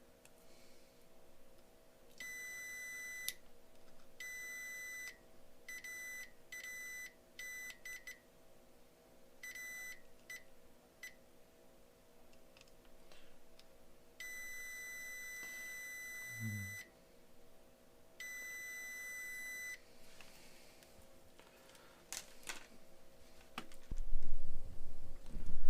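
Multimeter continuity-test beeper sounding on and off in irregular beeps, some brief and a few held for a second or two, as the probes touch connected points on the circuit board. Near the end come handling clicks and a low thump, the loudest sound.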